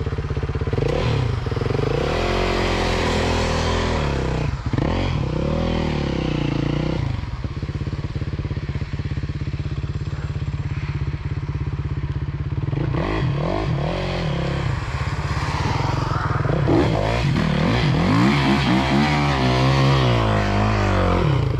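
Yamaha YZF 450 single-cylinder four-stroke motocross bike revving up and down in two stretches as it climbs a wet grassy bank, loudest near the end as it passes close. Under it, a second dirt bike's engine runs steadily close by.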